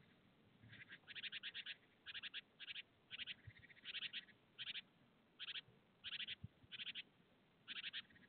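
An animal calling: a series of short, high-pitched rattling calls, each a quick run of pulses, repeated about once or twice a second.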